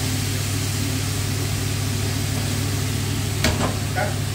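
A steady low mechanical hum with an even hiss over it, from a kitchen appliance running by the stove. About three and a half seconds in comes a short metallic knock, and a smaller one just after, as the wok is shifted on the gas hob's cast-iron grate.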